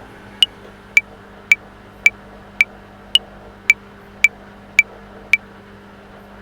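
Metronome clicking at 110 beats per minute in 5/4, with a higher-pitched accent click on the first beat of each bar: ten clicks, two bars, then the clicks stop about five seconds in as the silent practice bars begin. A faint steady hum lies underneath.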